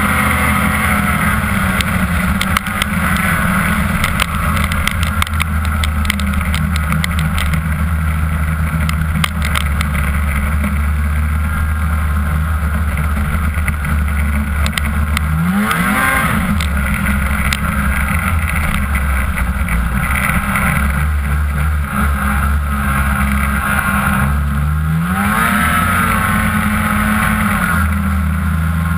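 2006 Ski-Doo MX Z 500SS snowmobile's two-stroke twin running hard at trail speed, its pitch rising twice, about halfway through and again near the end, as the throttle is opened. A run of sharp clicks is mixed in during the first third.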